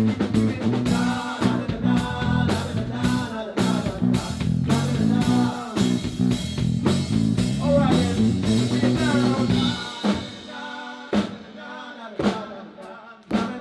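Live band music with drum kit, bass and guitar. About ten seconds in the bass drops out, leaving sparse drum hits and a thinner sound.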